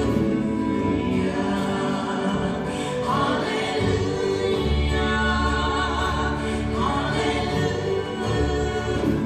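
Live gospel music: a three-woman vocal trio singing in harmony over upright-style bass, piano, guitar and violin, heard from the back of a church sanctuary.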